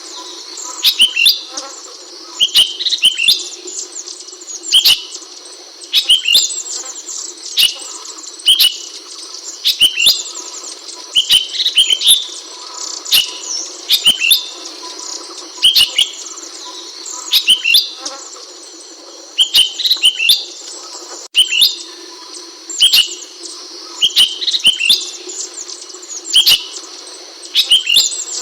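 Ashy bulbul (Hemixos flavala) calling, short high chirping phrases repeated about once every second or so, over a steady high-pitched hiss.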